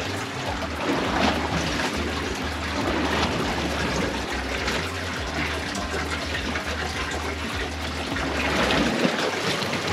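Water trickling and splashing steadily, with a low rumble that comes and goes underneath.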